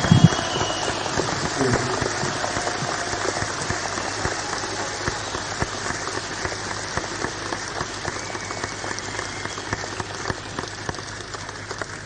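Concert audience applauding on an old audience-taped bootleg, a dense patter of claps slowly dying away, with a whistle and a few shouts near the start.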